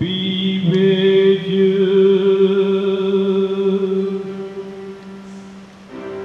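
Liturgical church singing: voices hold one long note for about four seconds, fading away, then move to a new chord near the end.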